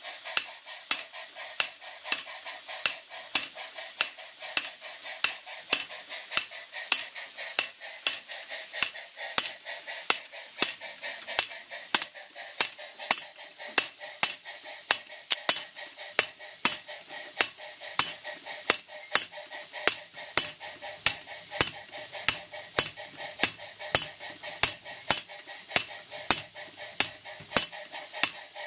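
DIY model steam hammer's brass head striking its steel anvil plate in a steady beat, about twice a second, driven by belt from a running Jensen 20G live-steam engine. Under the strikes runs a steady hiss and whirr from the engine and belts.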